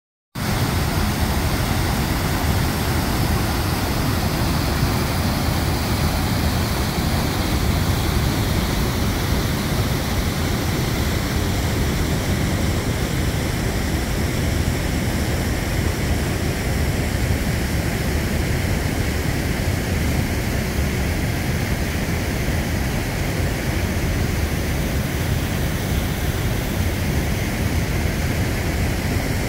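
Fast, swollen river rushing over a weir and through rapids: a loud, steady wash of water noise with a heavy low rumble.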